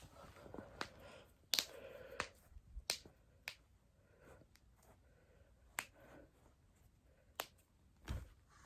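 Spinal joints cracking during back manipulation: a series of sharp, separate pops, about seven in all, the loudest about a second and a half in.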